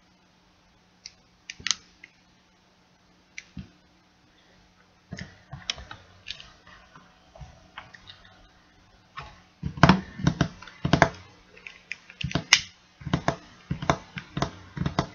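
Clicks and taps from a lighter being handled and flicked: a few separate clicks at first, then a quick run of loud clicks in the second half.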